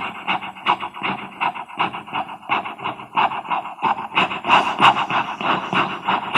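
Vocal imitation of a steam locomotive pulling out of a station, a rhythmic breathy chuffing made with the mouth at about three to four chuffs a second.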